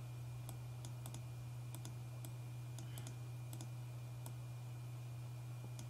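Irregular light clicks of a computer mouse and keyboard keys, over a steady low hum.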